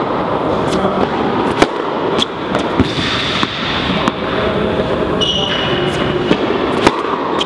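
A tennis ball bounced on an indoor court: three sharp knocks about 0.6 s apart in the first three seconds. It is then struck on the serve near the end, all over a steady, echoing hall noise.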